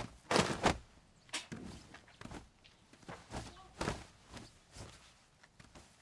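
Footsteps on a paved yard, roughly one step a second, with a louder pair of noisy strikes just after the start.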